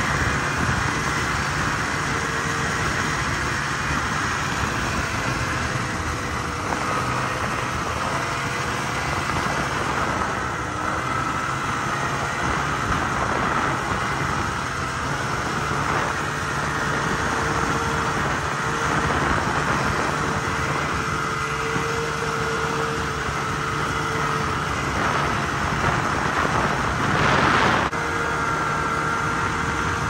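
Snowmobile engine running steadily under way, with a steady whine over it and a brief louder surge near the end.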